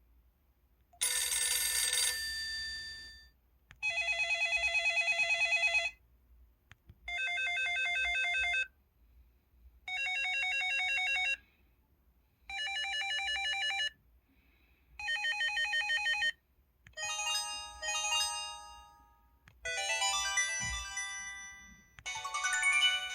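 Built-in ringtones of a Samsung SCH-W410 mobile phone played in turn. First a bell chime, then a warbling telephone-style ring repeated in five bursts of about two seconds with short gaps, then a short melodic tune that starts near the end.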